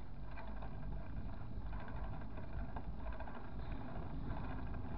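Steady rushing noise with a heavy low rumble: wind buffeting the microphone while riding a bicycle.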